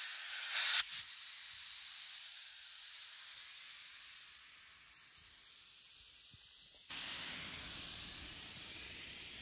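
Steady hiss of air rushing through a Morrflate multi-tire inflation hose kit, which turns abruptly louder about seven seconds in.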